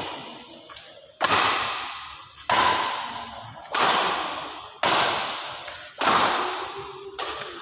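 Badminton rackets striking a shuttlecock back and forth in a rally: sharp hits about once a second, each ringing out in the hall's echo.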